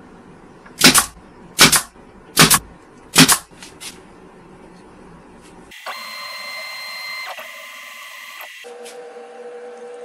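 Brad nailer firing four times, a sharp shot about every three-quarters of a second, driving nails into wood. From about six seconds in there is a steady whine with a few level tones, which changes pitch near the end.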